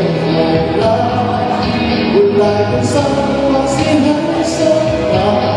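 Male singer singing a Cantonese pop song into a handheld microphone over a backing track, holding long melodic notes.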